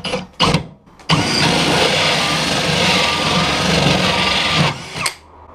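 Cordless drill with a hole saw cutting a round hole through a 9 mm marine plywood deck: a short blip of the trigger, then a steady run under load for about three and a half seconds that stops abruptly.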